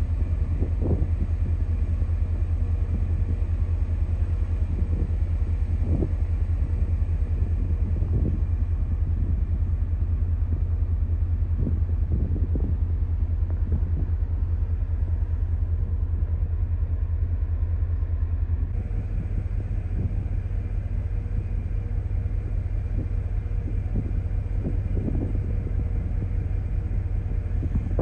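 Steady low rumble aboard a cruise ship underway. The rumble changes abruptly about two-thirds of the way through, becoming slightly quieter.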